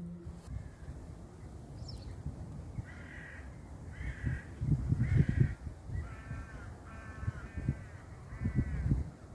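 Crow cawing: a series of about six harsh caws, roughly one a second, starting about three seconds in. Under it runs a low, uneven rumble that swells around five seconds in and again near the end.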